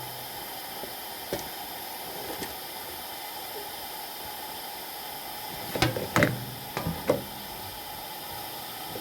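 A few short knocks and clatters, two light ones in the first few seconds and a louder cluster about six to seven seconds in, over a steady hiss.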